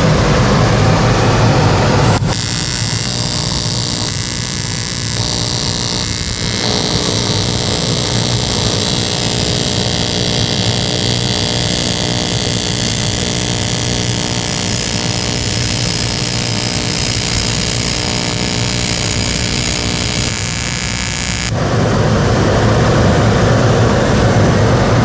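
TIG welding arc from a Voestalpine Böhler Welding TIG welder. It strikes suddenly about two seconds in, burns with a steady buzzing hiss for about twenty seconds, and cuts off suddenly. The arc ignites instantly when the torch is triggered.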